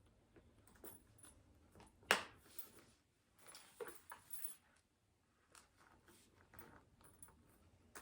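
Faint, scattered handling sounds of a leather handbag being handled: light rustling and small clicks and clinks of its metal hardware, the sharpest click about two seconds in and a cluster of them near the middle.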